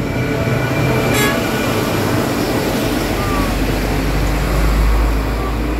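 A motor vehicle passing close by: a steady rush of engine and road noise, with a deep rumble building through the second half.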